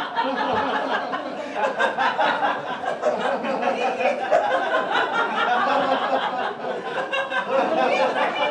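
A group of people laughing together, many voices overlapping: deliberate laughter in a laughter yoga exercise.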